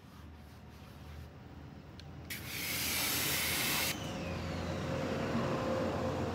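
Garden hose spray nozzle spraying water: a loud hiss starts about two seconds in and lasts about a second and a half, then eases to a softer steady spray.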